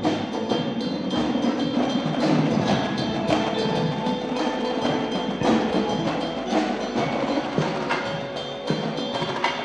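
Indoor drumline performing: marching snare, tenor and bass drums playing dense rhythms over a front ensemble of marimbas and other mallet keyboards holding ringing notes.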